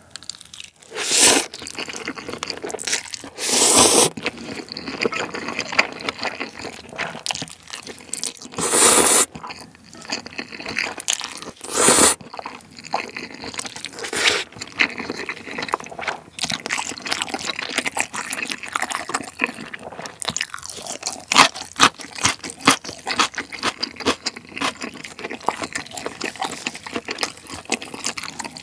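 Slurping of chewy jjolmyeon noodles in several loud pulls, the biggest about 1, 4, 9 and 12 seconds in, followed by steady close-up chewing.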